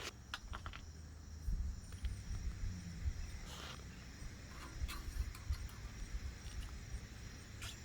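Scattered light clicks and taps of small bicycle hardware (the front wheel's quick-release skewer, springs and axle nut) being handled, over a low rumble, with a faint steady high-pitched hum.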